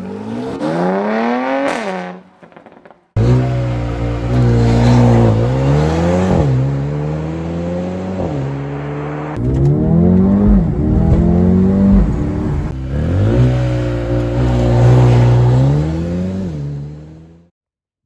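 Mercedes-AMG CLA 35's turbocharged four-cylinder engine on its stock exhaust, accelerating hard: the pitch climbs steadily, drops sharply at each upshift and climbs again. It comes as several separate runs that start abruptly.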